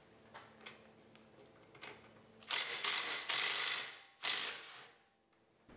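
Red cordless power ratchet spinning out the bearing cap bolts on a Dana 60 differential: a few light clicks as the socket goes on, then the tool runs for about a second and a half, stops, and runs again briefly just after four seconds in.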